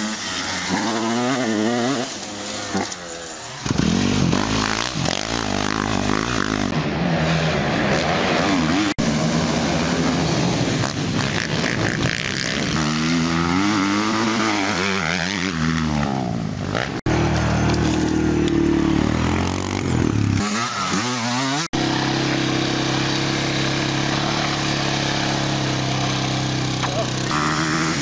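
Off-road motocross bike and ATV engines revving. The pitch rises and falls repeatedly and in places holds steady, with sudden cuts between clips.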